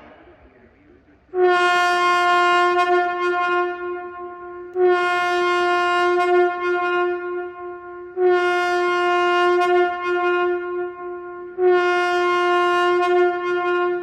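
Loudoun ES-5000DC electronic outdoor warning siren sounding its airhorn tone in a test: four long, steady horn blasts of about three seconds each, one note with many overtones, starting about a second in with brief dips between them.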